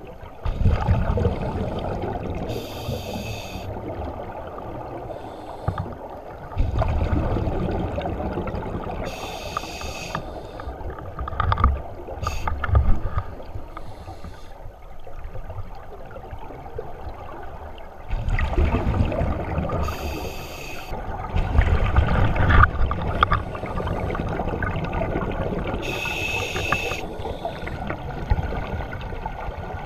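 Scuba diver breathing through a regulator underwater. Four short hissing inhalations each give way to several seconds of rumbling, bubbling exhalation.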